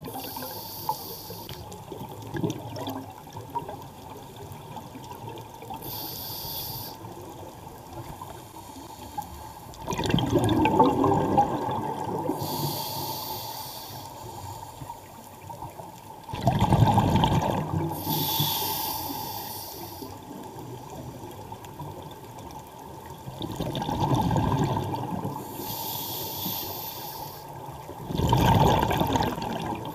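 Scuba diver breathing through a regulator, heard underwater: a hiss of air on each inhalation, then a louder gush of exhaled bubbles. The cycle repeats four times, several seconds apart.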